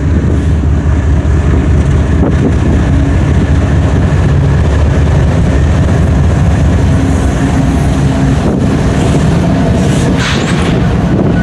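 Norfolk Southern diesel-electric locomotives (GE ES44DC, ES44AC and Dash 9-44CW and an EMD SD70ACe) passing close by at the head of an empty coal train, engines running with a steady deep rumble. A brief higher hiss comes in about ten seconds in, as the last locomotive and the first empty hoppers go by.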